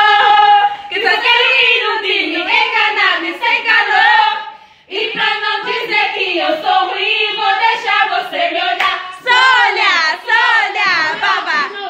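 Group of women singing together with hand clapping; the singing drops out briefly about halfway through.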